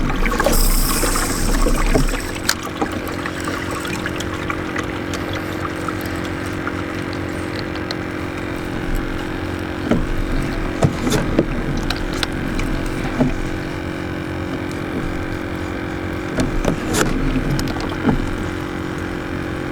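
Water lapping and trickling against a kayak hull, under a steady hum, with scattered small clicks and knocks on the boat.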